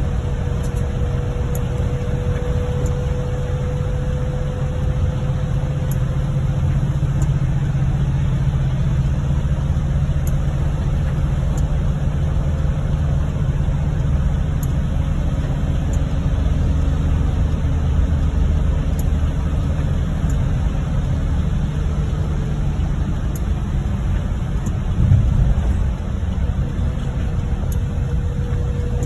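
Engine and road noise heard from inside a moving vehicle's cabin on a wet highway: a steady low rumble with a faint steady whine above it. There is one short bump about 25 seconds in.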